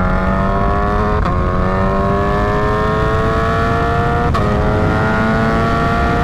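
Suzuki Hayabusa Gen 3's inline-four engine accelerating through the gears, its pitch climbing steadily. Two quick upshifts, about a second in and about four seconds in, each drop the revs before they climb again.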